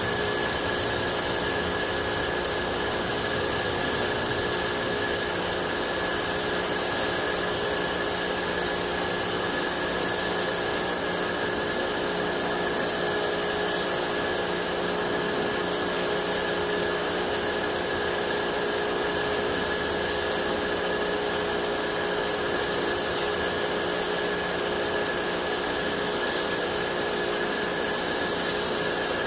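Compressed-air paint spray gun hissing steadily while spraying paint onto a car body, over a steady motor hum.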